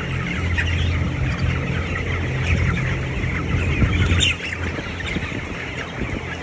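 A big flock of three-week-old broiler chickens cheeping and calling all over, above a steady low hum from the shed's large exhaust fans. A brief louder burst comes about four seconds in, after which the hum drops.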